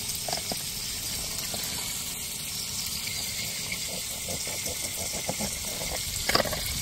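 Fish frying in hot oil: a steady sizzle with scattered small pops and crackles.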